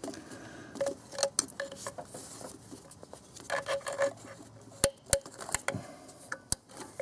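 Small clicks, taps and rubbing as a rubber coolant hose is handled and worked onto a metal thermostat housing by hand, with a few sharp clicks in the second half.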